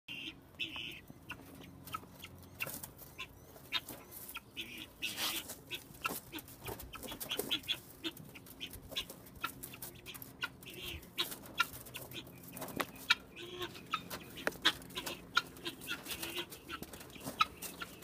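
Domestic fowl in a cage clucking, a scattered run of short sharp clucks and calls.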